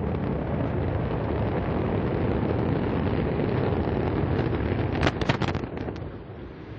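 Antares rocket's first-stage engines (twin AJ26) during ascent: a steady, loud, low rumbling roar, broken by a quick cluster of sharp cracks about five seconds in, after which the noise drops off.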